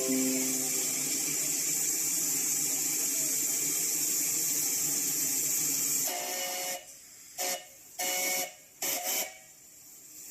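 A steady hiss for about six seconds, then a homemade PVC pipe whistle sounds in several short blasts, each a chord-like two-note tone, the first the longest.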